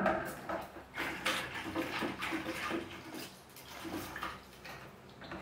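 Water sloshing and splashing in a plastic tub as a plastic storage box is scrubbed by hand in it: irregular splashes that grow quieter in the last couple of seconds.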